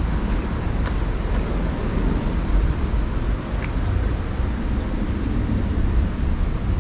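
Steady low rumble of wind buffeting the microphone outdoors, with a faint click about a second in.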